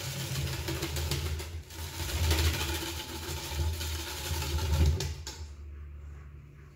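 Wire balloon whisk beating egg yolks and sugar in a stainless steel bowl as warm cream is poured in: a swishing, scraping mix with uneven surges that eases off about five seconds in.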